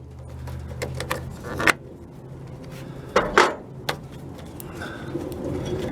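Scattered metallic clicks and knocks of a battery cable terminal being fitted onto the positive battery post and tightened with a wrench, over a faint low hum.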